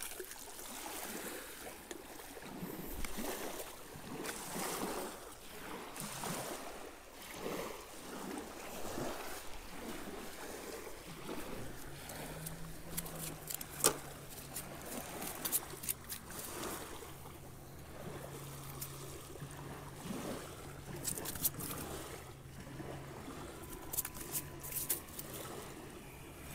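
Small lake waves washing and lapping against a rocky shoreline in a steady, swelling wash, with scattered sharp clicks and taps from handling a landed fish and fishing tackle, most near the middle and toward the end. A faint low hum comes in about halfway through.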